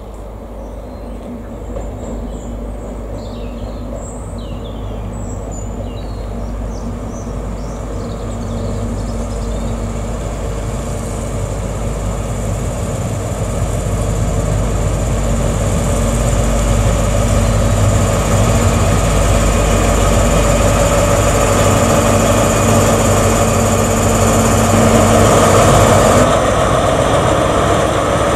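A Class 43 HST diesel power car approaching and passing, its steady engine note and rail noise growing louder throughout and peaking as the power car draws level near the end. Birds chirp in the first several seconds.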